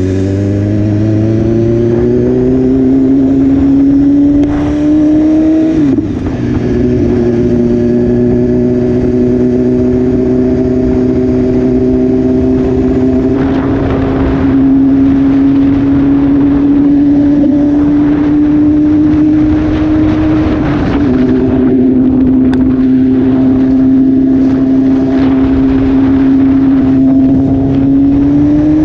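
A 2016 BMW S1000RR's inline-four engine, through an Austin Racing aftermarket exhaust, accelerating under way. Its pitch climbs for the first few seconds and then drops sharply at an upshift. It holds a nearly steady cruise, drops again at a second upshift about two-thirds of the way through, and starts to climb again near the end, with steady wind noise underneath.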